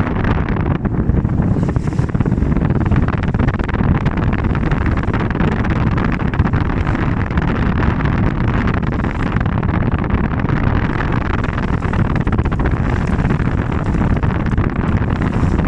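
Steady wind rumbling on the microphone aboard a moving boat, with the boat's motor running underneath.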